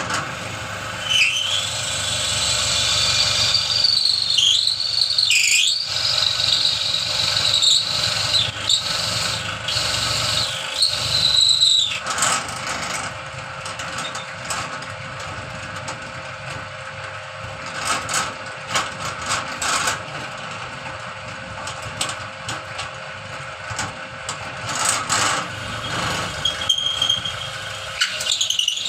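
Dowel-pointing machine running, its cutter shaving a point onto a 30 mm wooden broom-handle dowel. A high squeal that bends up and down over the first dozen seconds gives way to a rattling, clicking cut, with the squeal returning briefly near the end, all over the machine's steady motor hum.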